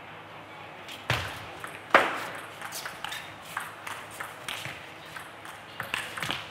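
Table tennis rally: the ball clicking off paddles and the table. Two sharp hits come about a second in, the second the loudest, then a run of quicker, lighter ticks.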